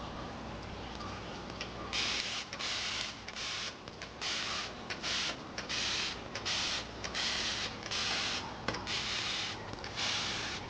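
Hand spray bottle misting in a string of short hissing squirts, about a dozen, starting about two seconds in.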